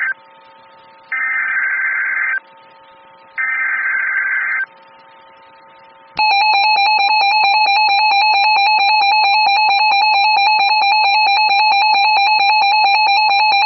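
Emergency Alert System activation on NOAA Weather Radio: three short bursts of screeching digital header data about a second apart, then, about six seconds in, the loud steady warning alarm tone begins. It signals a newly issued tornado warning.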